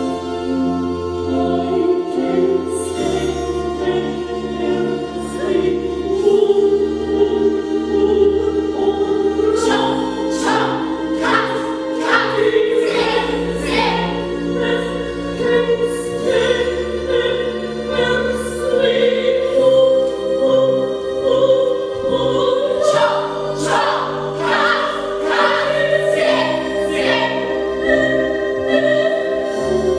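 Choral music, voices singing long held notes over sustained low tones. From about ten seconds in, sharp percussive accents come in at about two a second.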